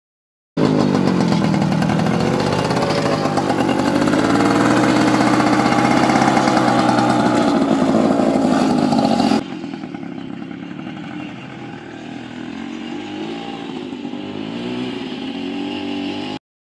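Single-cylinder two-stroke engine of a 1954 Puch 125 RL scooter built into a cargo scooter, running loud and close with its pitch rising gently as it is ridden. About nine seconds in, an abrupt cut brings the same engine in quieter and duller, farther off, as it rides along.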